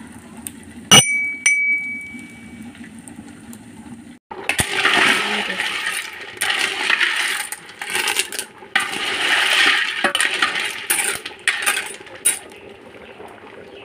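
A metal cooking pot clinks once with a short ringing tone about a second in. After a cut, food is stirred with a wooden spatula in a hot, steaming metal pot, with loud hissing and sizzling that comes in bursts and stops shortly before the end.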